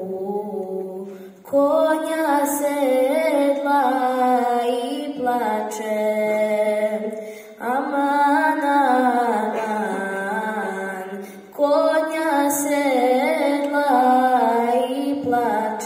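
A young girl singing a Serbian folk song solo and unaccompanied into a microphone, in long phrases with wavering, ornamented pitch and short breaths between them.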